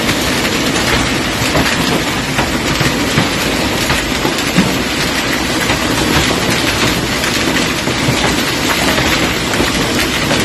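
Hail pelting down onto a paved walkway, lawn and street: a dense, steady patter of countless small hits.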